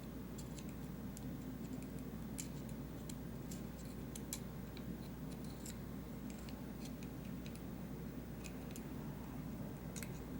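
Faint, irregular small clicks and ticks as lubed pivot bearings are picked out of a folding knife's pivot, metal tapping on metal, over a steady low hum.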